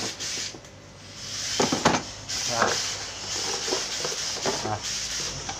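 Plastic tool carry case being opened and its contents handled: a few sharp clicks and knocks of hard plastic, the loudest about one and a half to two seconds in, with rustling and scraping between.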